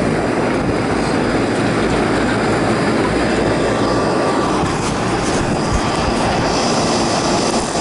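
Rooftop air-conditioning units running: a steady, loud rush of condenser fans and airflow.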